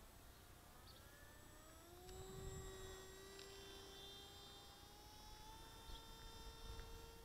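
Distant electric RC plane, an Eachine Micro Skyhunter with a 2204 2300KV brushless motor and propeller, whining faintly overhead. Its pitch rises about a second in and then holds steady.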